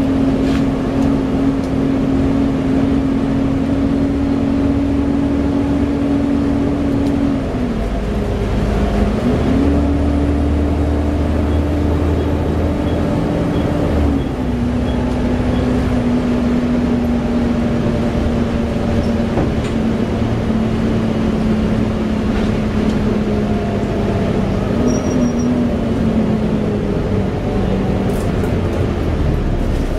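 Inside a Volvo B7TL double-decker bus under way: the engine and ZF gearbox running with the loud whine of the cooling fan, known to enthusiasts as a 'hoover'. A strong steady tone drops and climbs back a few times as the bus's speed and load change, over constant road rumble.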